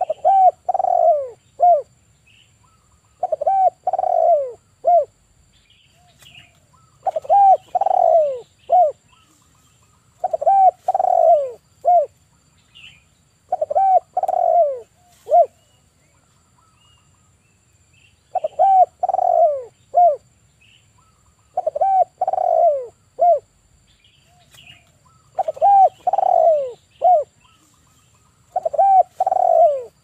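Male spotted dove (tekukur) cooing. It repeats a three-part phrase, a short coo, a longer falling coo and a short closing note, about every three to four seconds, with one longer pause midway.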